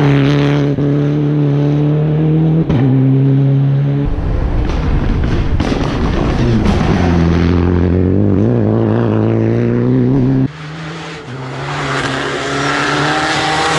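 Citroën DS3 R3 rally car's turbocharged four-cylinder engine running hard through corners on a tarmac stage, its pitch climbing and dropping with throttle and gear changes. The sound cuts abruptly to a new pass about four seconds in and again near ten and a half seconds.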